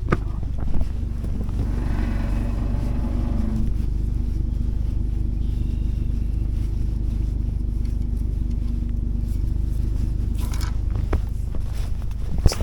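A moving vehicle's engine and road noise: a steady low rumble.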